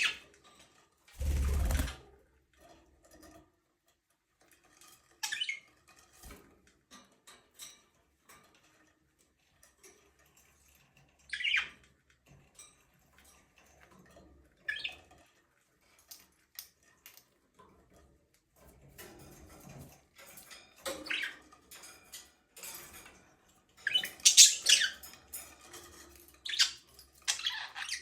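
Budgerigars chirping in short, separate calls with gaps between them, becoming busier and louder near the end. About a second in there is a brief loud rush of noise.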